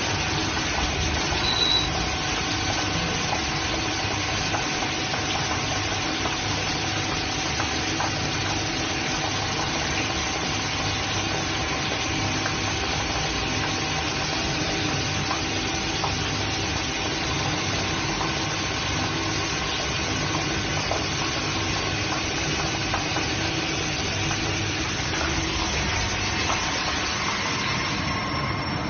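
CNC thread grinder running: the grinding wheel cutting a screw thread under a flood of coolant, a steady mix of machine hum, coolant spray and grinding noise with a few faint steady tones. The hiss thins out just before the end.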